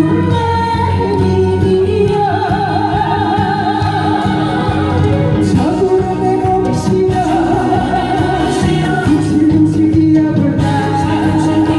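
A singer performing a Korean song live with vibrato over upbeat accompanying music.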